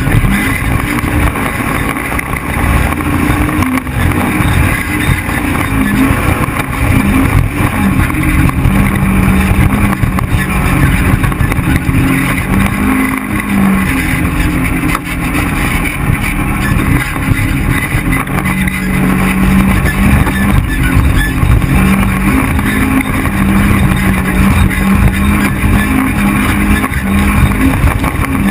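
Side-by-side UTV engine running hard while driving over sand, heard from the vehicle itself. The engine pitch steps up and down repeatedly as the throttle and speed change.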